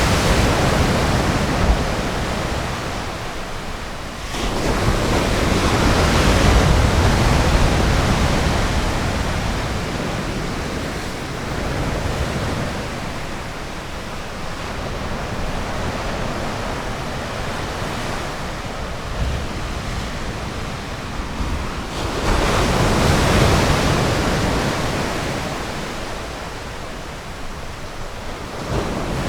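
Ocean surf on a sandy bay: waves breaking and washing up the beach in slow swells, with one surge about four seconds in and another a little past twenty seconds, and a steady hiss of wash between them.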